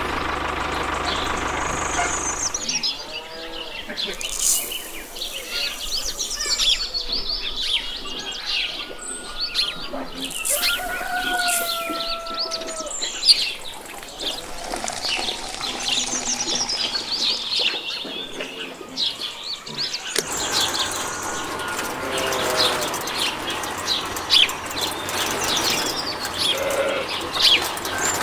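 Small birds chirping and calling throughout, with short rising and falling whistles and scattered light clicks and taps. A steady hum runs under the first two seconds or so, then stops.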